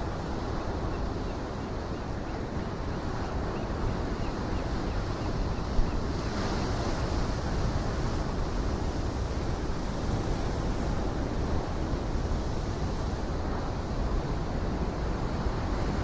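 Ocean surf breaking on a rocky shoreline and washing in, a steady rushing wash, with one wave breaking brighter about six seconds in. Wind rumbles on the microphone, and a short thump sounds just before that wave.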